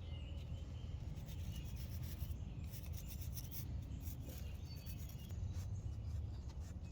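Toothbrush scrubbing a small carburetor part, with a run of quick rubbing strokes around the middle, over a low steady hum.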